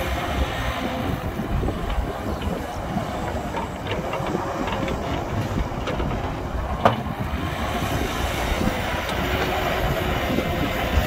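Caterpillar excavator's diesel engine running steadily as the bucket digs into dirt, with a few short knocks and one sharp clank about seven seconds in.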